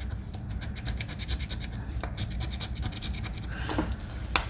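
Coin scratching the latex coating off a scratch-off lottery ticket in quick, rapid back-and-forth strokes, which stop about three and a half seconds in; a light click follows near the end.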